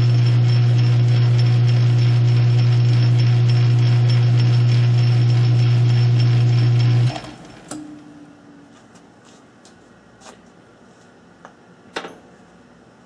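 South Bend lathe running with a steady electric-motor hum while the spindle turns the tap and die holder, switched off about seven seconds in, with a fainter tone dying away briefly after. A few light clicks follow.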